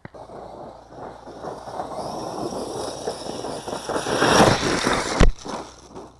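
HobbyKing Nitro Circus Basher 1/8-scale brushless electric RC monster truck driving over a stony dirt track, its tyres crunching on gravel under a faint high motor whine. It grows louder as it nears and passes, loudest about four to five seconds in, then drops off suddenly.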